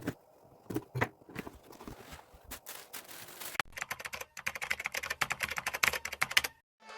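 A string of sharp clicks and taps, scattered at first, then coming thick and fast for about three seconds before stopping abruptly.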